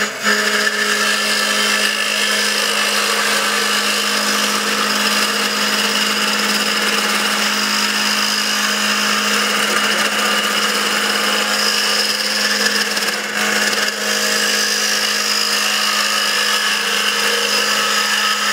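Wood lathe spinning a walnut blank at about 2800 RPM while a duplicator's cutting tip rough-turns it: a steady motor hum under continuous cutting noise, dipping briefly twice.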